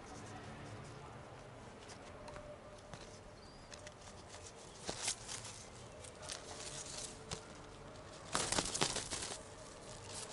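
Wood pigeons scuffling on a balcony ledge: scattered taps and scrapes of feet and beaks, a sharp tap about five seconds in, and a louder bout of wing flapping near the end.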